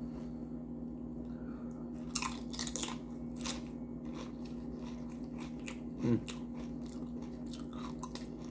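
Doritos nacho chips crunched while being chewed close to the microphone: a string of crisp crunches, thickest from about two to four seconds in.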